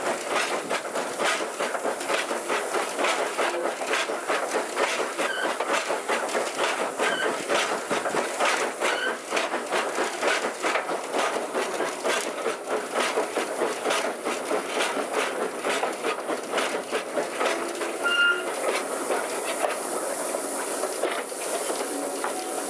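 On-board sound of a steam-hauled railway carriage running over the track, with steady rhythmic clicking of the wheels over rail joints. A brief squeal comes near the end as the clicking dies away, with the train drawing to a stop.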